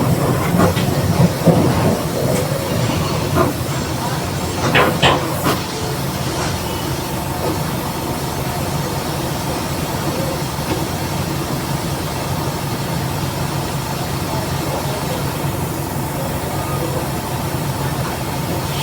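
Mercedes-Benz OF 1721 BlueTec 5 city bus under way, a steady drone from its engine and driveline with the rear differential growling. A few short knocks and rattles in the first five seconds, then an even, unchanging run.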